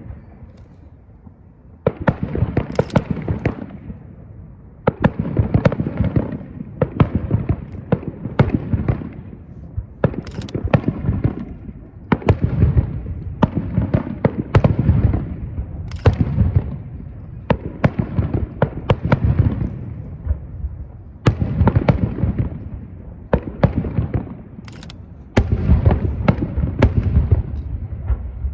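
Aerial fireworks shells bursting in quick volleys, a fresh cluster of sharp bangs every two seconds or so. Each cluster trails off in a low echoing rumble.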